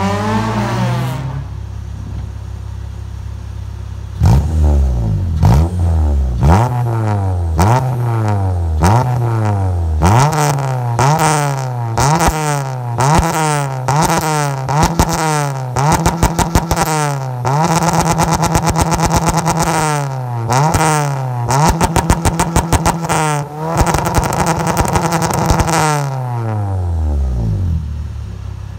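K24A-swapped Acura RSX Type-S with a K-Tuned 4-2-1 header (cat delete) and K-Tuned oval muffler, parked and free-revved. After a few seconds at idle it gives a string of quick blips about one a second, then longer revs held high with a rapid stutter. It drops back to idle near the end.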